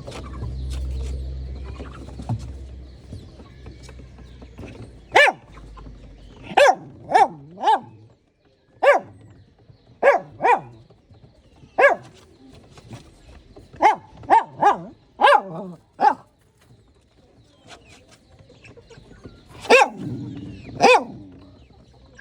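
A dog barking: about fifteen short, sharp barks in irregular bursts, singly and in quick runs of two or three, beginning about five seconds in.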